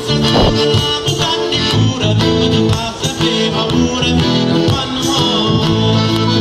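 Southern Italian folk song played live by a band, with acoustic guitar and accordion through a PA system.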